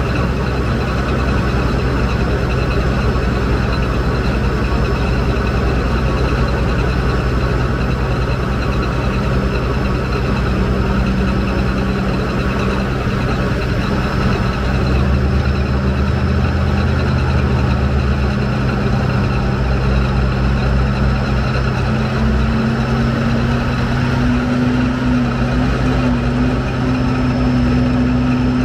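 CME 750X drill rig running steadily with its rotary drill head turning. A steady tone in the hum rises slightly in pitch about two-thirds of the way through.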